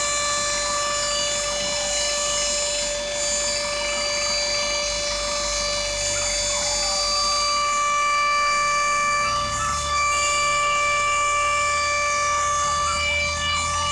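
Many fire sirens sounding together, mostly in held steady tones at several pitches, with a few wailing sirens gliding up and down over them: a collective siren salute. A low rumble joins about halfway through.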